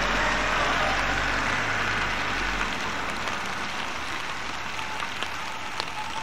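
Toyota Hiace van driving slowly away on wet pavement: a low engine hum over a steady hiss of tyres on the wet road. The engine hum fades after about two and a half seconds.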